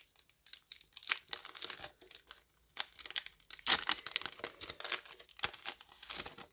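A foil Yu-Gi-Oh booster pack wrapper being torn open and crinkled by hand, in irregular crackling bursts that stop just before the end.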